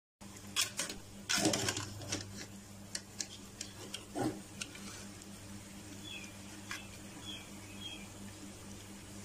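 Wire spider strainer clinking and scraping against a steel pot while scooping boiled chicken pieces out of their cooking liquid, with the liquid sloshing; the loudest slosh and scrape come about one and a half seconds in and again about four seconds in. A steady low hum runs underneath.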